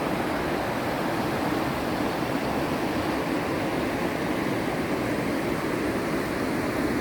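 Steady rush of fast-flowing water, an even roar without breaks.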